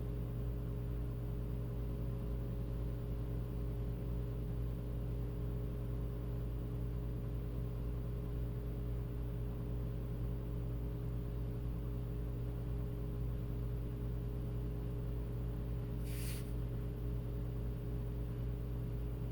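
Steady low background hum made of several steady low tones, with a brief high hiss about sixteen seconds in.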